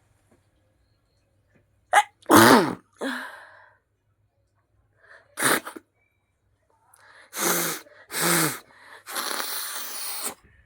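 A person sneezing several times in a row; the loudest sneeze comes about two seconds in, and a longer, breathier one comes near the end.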